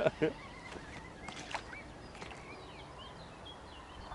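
Faint birdsong: a series of short chirps and quick rising and falling notes from small birds.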